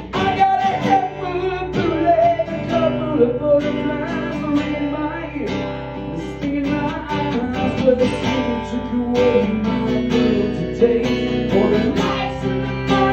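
Acoustic guitar strummed steadily, with a man's voice singing the melody over it, played live.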